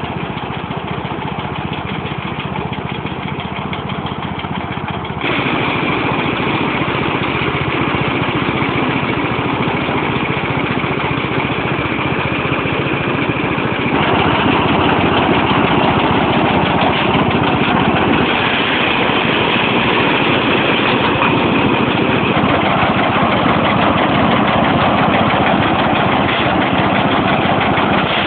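Diesel engine running steadily and driving a rice thresher's spinning drum as rice stalks are fed against it. The sound gets louder and noisier about five seconds in and again about halfway through.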